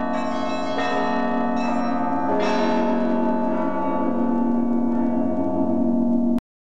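Church bells ringing in the soundtrack music, a dense chord of bell tones with a few fresh strikes early, then a long sustained ring that cuts off abruptly near the end.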